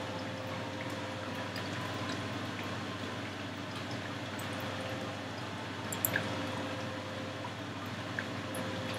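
Steady low room noise: a faint hiss with a light electrical hum, and a couple of soft clicks about six seconds in.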